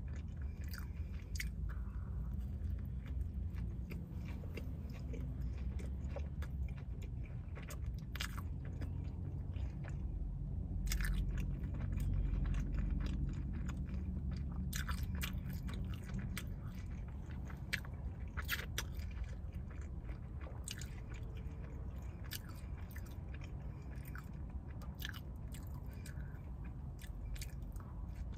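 A person eating McDonald's food: chewing and biting with many sharp, crunchy mouth clicks over a steady low hum.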